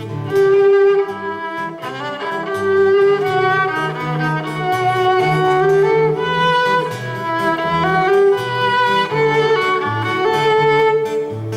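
Instrumental music: a violin plays a sustained melody over a lower, stepping string accompaniment, with no singing.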